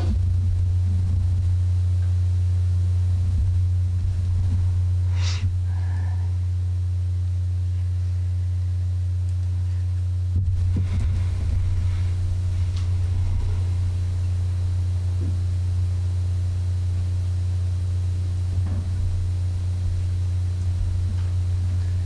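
A steady, loud low hum, with a short sharp noise about five seconds in and a few faint knocks later on.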